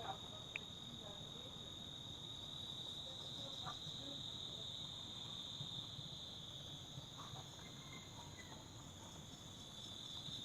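Steady, unbroken high-pitched trilling of insects in the background, faint, with a single small click about half a second in.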